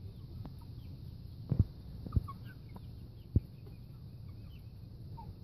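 Hen making a few faint, short clucking calls, with a few sharp low thumps between about one and a half and three and a half seconds in.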